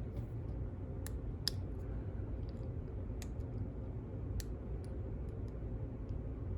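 Scattered light metallic clicks, about half a dozen spread out irregularly, as a small tool works at the snap ring on a lock cylinder, over a steady low hum.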